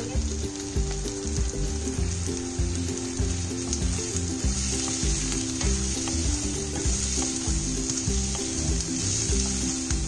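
Chopped onions, capsicum and spring onions sizzling steadily in hot oil in a wok over high heat, stirred with a wooden spatula that scrapes and taps against the pan.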